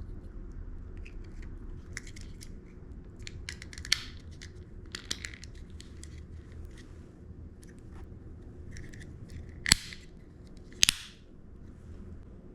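Small plastic parts of a car's mirror switch clicking and scraping as the switch is reassembled, with two loud, sharp snaps near the end.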